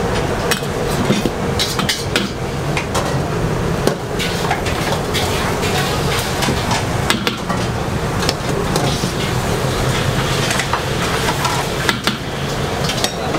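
Metal ladle clinking and scraping against a steel wok while rice noodles are stirred and cooked in sauce for pad thai, over a steady background roar of kitchen noise.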